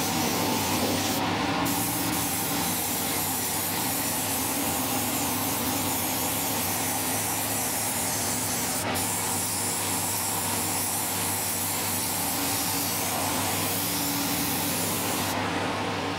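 Air spray gun hissing steadily as it sprays paint onto a panel, over the steady hum of a running motor. The spray lets off briefly about a second in and stops near the end, with one sharp click in the middle.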